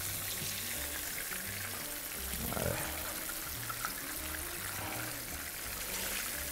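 Floured hake pieces sizzling in hot oil in a frying pan: a steady fine hiss with a few small pops, over quiet background music.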